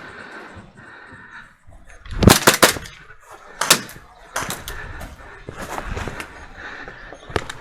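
Airsoft guns firing: a quick cluster of sharp pops about two seconds in, then single shots scattered through the rest.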